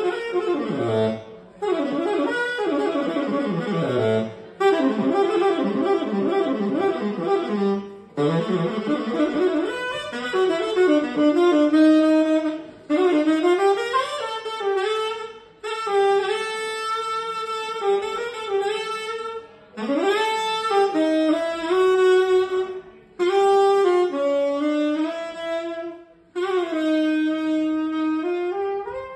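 Unaccompanied tenor saxophone playing jazz. It opens with fast runs of notes for several seconds, then moves into phrases of longer held notes broken by short gaps, and ends on a long held note.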